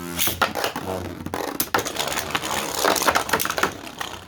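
3D-printed Beyblade tops spinning and colliding in a plastic stadium: a whirring hum that fades out about a second and a half in, under rapid, irregular clattering knocks as the tops strike each other and the walls.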